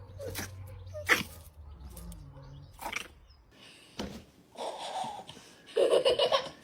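A few sharp knocks, then two short pitched animal calls in the second half.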